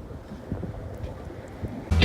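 Wind rumbling on the microphone, a low, even noise with a few faint knocks. Music cuts in right at the end.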